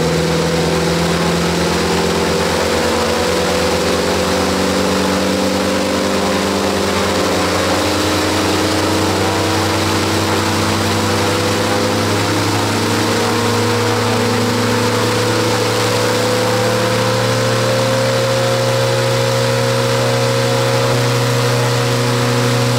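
Chevrolet V8 truck engine on a test stand running steadily, driving a propeller through a geared reduction drive. Its pitch creeps up slightly in the second half.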